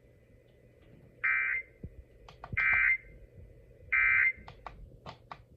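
NOAA Weather Radio's SAME end-of-message code: three identical short buzzy data bursts, a little over a second apart, marking the end of the alert. A few sharp clicks are scattered between and after them.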